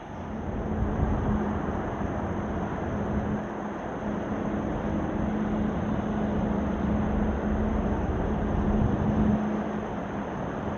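Freight train hauled by a JR Freight EF210 electric locomotive passing close by: a loud, steady rumble of wheels on rail with a steady hum underneath, rising sharply just as it begins.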